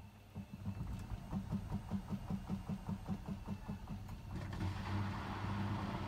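Hotpoint WMFUG 942 front-loading washing machine starting its drum on a Cotton Standard 60 wash: the motor runs with a fast, even pulsing over a steady hum. About four seconds in, a steady hiss joins it.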